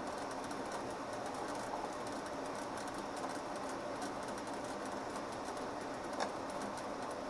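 Steady mechanical background noise with faint rapid ticking, and a single small click about six seconds in.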